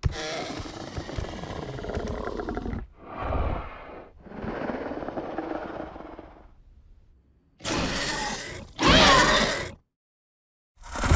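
Monolophosaurus creature sound effects, largely built from pig vocalizations: a long rough call, then a series of shorter calls separated by brief silences. The loudest comes near the end, with a sweeping pitch.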